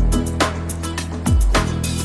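Background music with a steady beat: deep bass kicks that drop in pitch, crisp high percussion hits, and sustained notes underneath.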